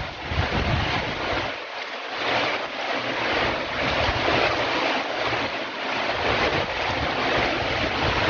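Wind rushing and buffeting the microphone, a steady hiss with uneven low gusts.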